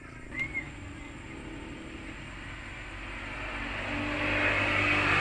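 A motor vehicle approaching along the road, its engine and tyre noise growing steadily louder.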